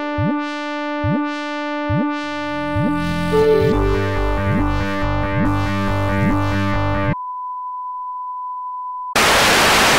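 Electronic synthesizer music with a held tone and repeated downward-swooping blips, a pulsing bass line coming in about two seconds in. The music cuts off suddenly about seven seconds in and gives way to a steady test-pattern tone, followed near the end by a loud burst of white-noise static.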